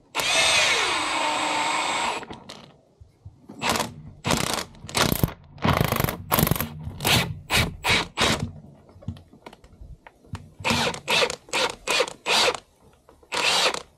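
Cordless drill driving the bolt of a homemade diesel injector puller: one run of about two seconds at the start whose pitch falls as the motor loads up, then a long series of short trigger bursts as the bolt is tightened down to pull a stuck injector from the cylinder head.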